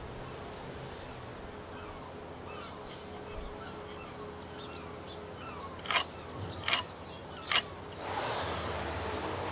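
Small birds chirping in the background, then three sharp taps about six to seven and a half seconds in, followed near the end by a scratchy rasp of a pencil drawn along a try square, marking notches on pallet-wood cross pieces.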